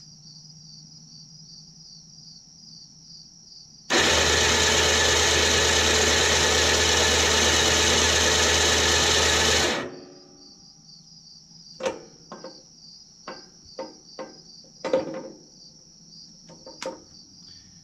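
A salvaged winch's electric motor, fitted as a lawn tractor's drive motor, is powered through jumper clamps for a 12-volt test and spins freely with the transmission in neutral. It runs loudly and steadily for about six seconds, starting about four seconds in, then cuts off abruptly. A few clicks and knocks follow.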